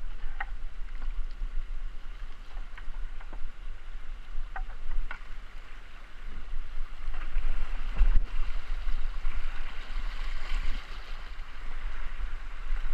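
Kayak paddling on a river: water swishing and splashing with the paddle strokes, with scattered small clicks and drips, over a steady low rumble on the microphone.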